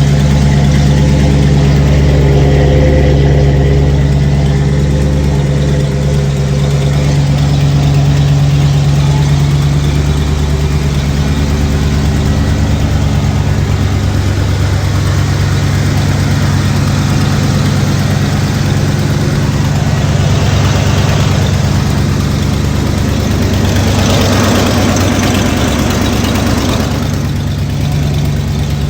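1989 Ford F-150 engine idling steadily, with an exhaust leak. A few seconds of added hiss come through near the end.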